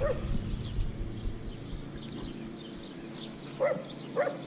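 A dog barking: two short barks in quick succession near the end.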